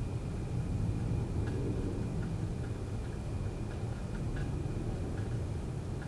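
Air conditioner's outdoor fan running with a steady low rumble, under a thin, steady high cricket trill. Scattered short ticks sound irregularly throughout.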